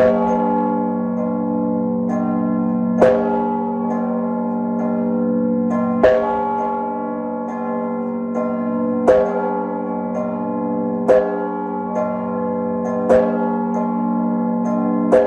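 A peal of large bronze church bells chimed by ropes pulled on their clappers. The big bell strikes about every two to three seconds, seven strokes in all, over the continuous hum of the ringing bells. Lighter, quicker strokes from the smaller bells fall in between.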